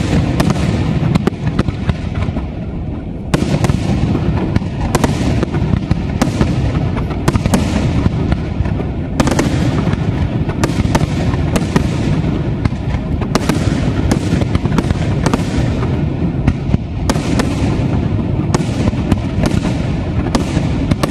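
Aerial firework shells bursting in a dense, continuous barrage: many sharp bangs in quick succession over a constant low rumble, easing briefly about two to three seconds in before building again.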